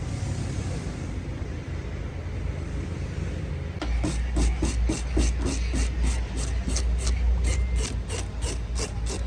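Steady background rumble, then, about four seconds in, repeated rasping strokes begin at about three a second.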